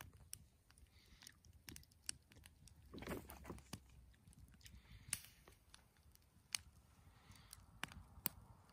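Campfire burning faintly, wood giving off sharp, irregular pops and crackles, with a brief louder rustling noise about three seconds in.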